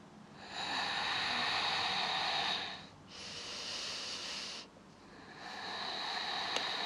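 A woman breathing deeply and audibly while holding a yoga pose: three long breaths, each a couple of seconds, with short pauses between them.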